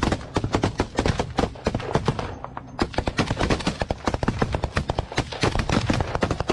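Heavy automatic gunfire in rapid, dense strings of shots, with a brief lull about two and a half seconds in, over a steady low rumble typical of an armoured vehicle's engine.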